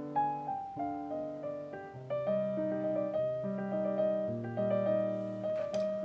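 Background piano music: a gentle melody over held bass notes that change every second or two.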